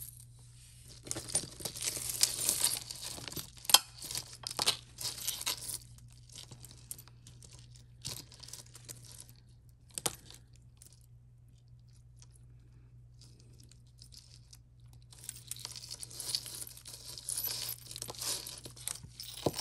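Jewelry and its packaging being handled: rustling and crinkling in two spells, from about a second in and again near the end, with a few sharp clicks between.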